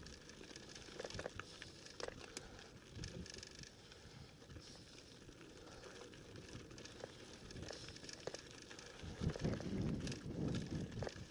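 Mountain bike rolling over a dirt and gravel trail, its tyres running on loose stones with scattered clicks and rattles from the bike. It gets louder and rougher about nine seconds in, over rockier ground.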